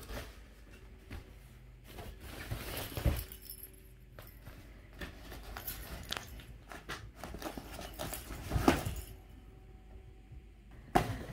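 Kittens scrambling in and around a nylon pop-up play tunnel: irregular rustling of the fabric with light scuffs and bumps, loudest about three seconds in and again near nine seconds.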